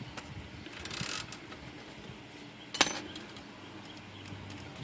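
Royal Quiet De Luxe typewriter's mechanism being worked by hand: a short rasp about a second in, then one sharp metallic click near three seconds, with a few faint ticks. The margin stop is not working properly, which the repairer traces to its trigger.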